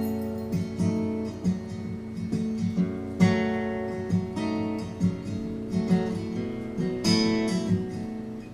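Acoustic guitar playing a song's instrumental intro: strummed chords over a steady, repeated bass-note pulse.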